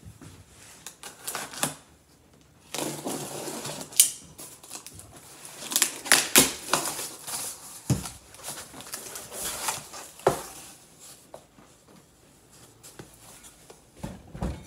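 Cardboard box being opened and handled: flaps pulled and cardboard scraping and rustling as a porcelain toilet tank lid is slid out, with a few sharp knocks and clicks along the way.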